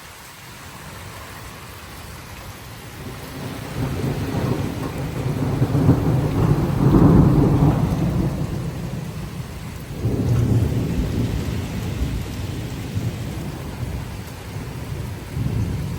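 Rolling thunder over steady heavy rain during a severe thunderstorm. The rumble builds to a peak about seven seconds in, fades, then a second roll comes in around ten seconds.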